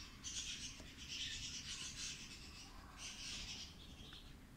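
Soft dry rubbing and rustling of paper as the textbook's pages are handled, in three stretches, the middle one the longest.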